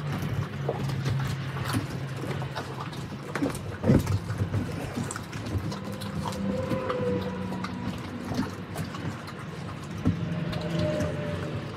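Mastiffs chewing and crunching raw turkey with the bones in, an irregular run of wet cracks and crunches, the loudest about four seconds in. A steady low hum runs underneath.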